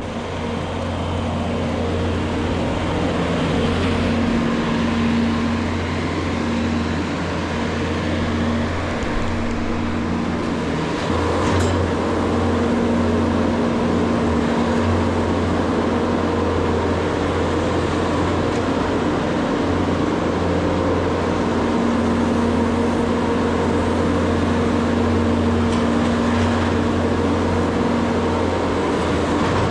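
Engine of farm machinery running steadily, its pitch shifting a little as the engine speed varies.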